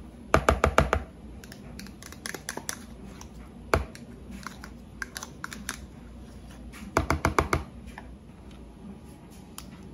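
Spoon tapping and scraping mayonnaise out of a plastic measuring cup over a plastic mixing bowl: a quick run of sharp taps just after the start, one knock about four seconds in, and another run of taps about seven seconds in.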